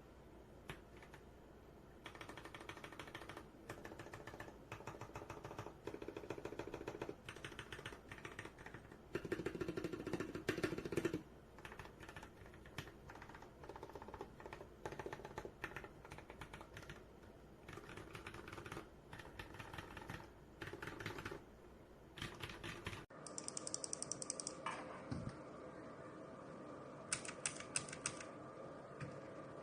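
Typing on a mechanical keyboard fitted with Gateron Pro Milky Yellow linear switches: rapid keystrokes in bursts with short pauses between them. About two-thirds of the way through, the sound changes abruptly to a duller recording with a steady hum and a few brief runs of clicks.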